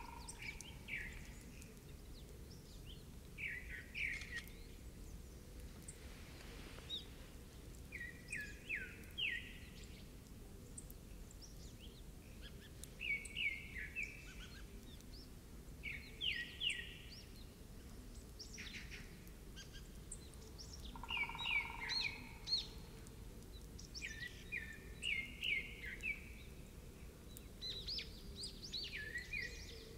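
Wild songbirds singing: one bird repeats a short phrase of quick high notes every few seconds, and another gives a single steady low whistle about twenty seconds in, over faint outdoor background noise.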